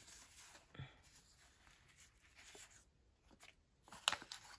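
Faint rustling of a paper sticker sheet being handled and peeled, with a few light ticks and taps, the clearest cluster near the end.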